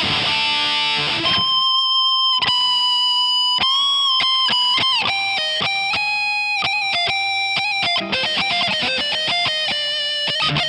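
Ibanez RC720 Premium electric guitar played with a distorted tone: a dense chord or riff for about the first second, then a lead line of long held single notes with string bends and vibrato.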